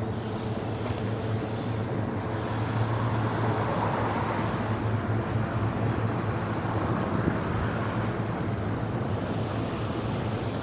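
City street traffic: a steady low engine hum under a wash of vehicle noise that swells a few seconds in, as a vehicle passes.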